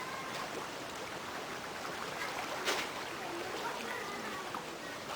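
Floodwater rushing steadily, with faint voices in the background and one sharp click a little over halfway through.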